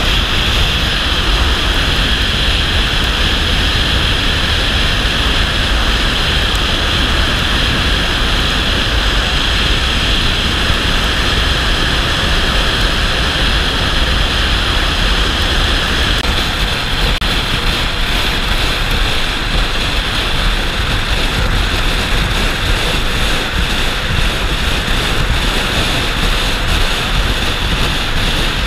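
Steady rush of wind and road noise from a vehicle driving at speed, heard through a camera mounted outside the vehicle, with wind buffeting the microphone.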